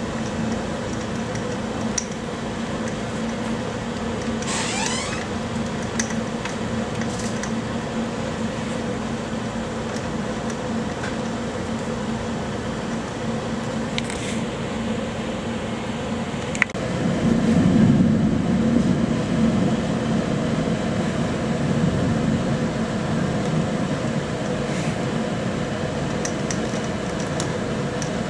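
Steady rush of a rainstorm heard through an open screened window, with a low steady hum under it. A brief high squeal sounds about five seconds in, and from about seventeen seconds a louder low rumble swells and slowly eases off.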